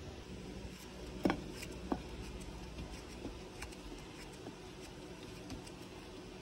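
Slices of bread being torn apart by hand and the pieces dropped into a bowl, with faint crackles of crust. Two sharp knocks come about a second in.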